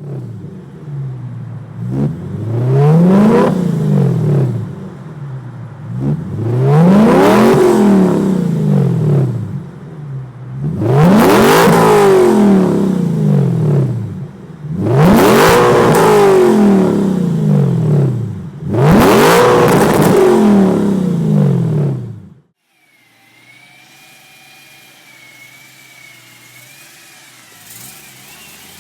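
BMW E9X M3's V8 free-revving through its exhaust: five blips, each climbing and falling back in pitch, about four seconds apart. About three quarters of the way through it drops suddenly to a much quieter steady running sound.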